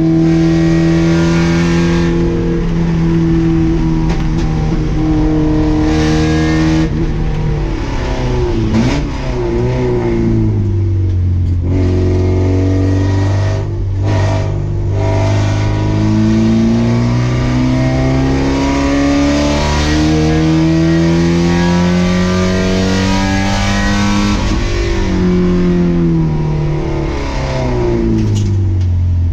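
Race car engine under load, recorded onboard. It holds a steady high pitch, then the revs fall in steps as the car slows about eight to ten seconds in. It then climbs steadily through the revs, with two upshifts near the end where the pitch drops and rises again.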